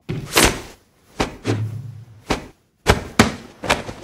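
A run of sharp thuds and whacks, about eight of them, irregularly spaced, with a brief low hum under one of them about a second and a half in.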